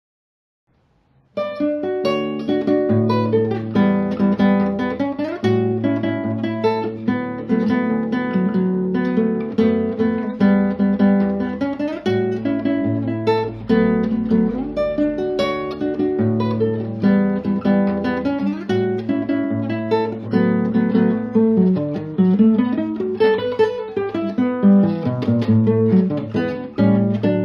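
Solo nylon-string classical guitar, a Di Giorgio Talent I, fingerpicked: a melody of plucked notes over a sustained bass line. It starts about a second in, after silence.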